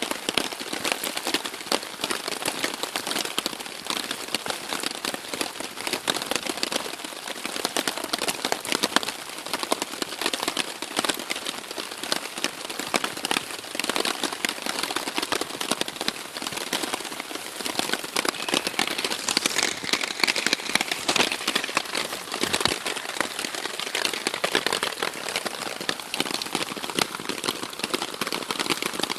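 Steady rain striking a Warbonnet Superfly hammock tarp overhead, a dense continuous ticking of drops.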